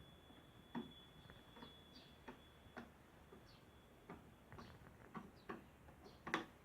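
Faint, irregular clicks and taps of small hand tools working on toys, about a dozen, the sharpest near the end. A faint high steady tone stops about three seconds in.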